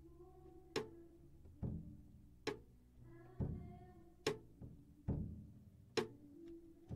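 Live worship band playing a slow instrumental passage. The drum kit keeps a steady beat, with kick drum and sharp snare hits alternating a little under a second apart, under sustained chords from electric guitar and keyboard.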